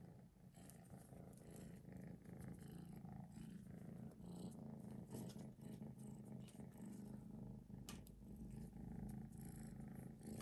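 Young kitten purring steadily in a low, even rhythm.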